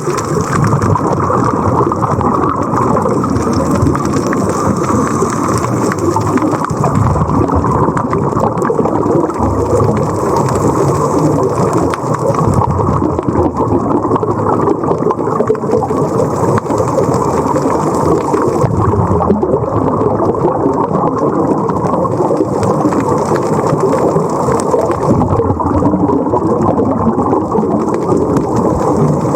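Steady, muffled rushing of water with a low rumble, and no clear strokes or tones.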